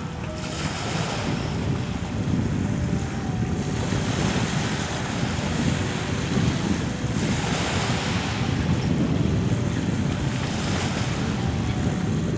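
Wind buffeting the microphone in a steady low rumble, with small lake waves washing onto a pebble shore in swells of hiss.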